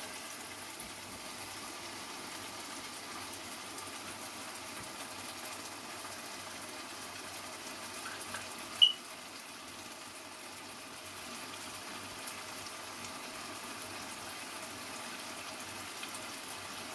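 Tomato, onion and green chili sauce simmering in a wok with tinned tuna tipped in, a steady bubbling hiss. One short, sharp clink about nine seconds in.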